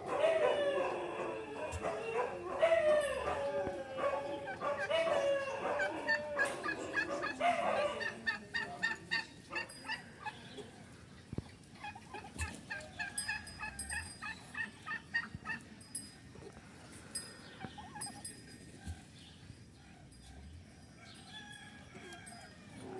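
Domestic turkeys calling, with a Bronze tom among them: overlapping warbling calls for the first eight seconds or so, then a fast run of short, evenly spaced high calls that grows quieter toward the end.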